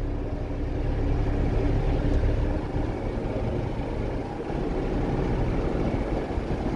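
New Holland TD80D tractor's diesel engine running steadily under way, heard from inside the cab.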